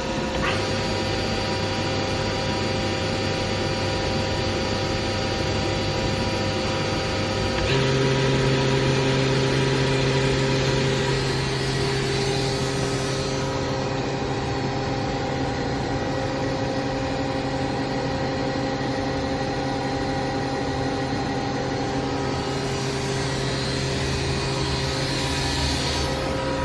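Fanuc Robodrill α-D21SiA5 drill-tap machining center running with a steady mechanical hum and several steady whining tones. About eight seconds in, the tones jump to a new, slightly lower set and it runs a little louder, then holds steady.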